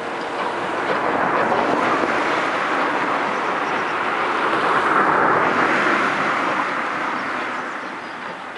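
LMS 8F 2-8-0 steam locomotive hauling a passenger train away: a steady noise of the working engine and rolling coaches that grows louder for about five seconds and then fades.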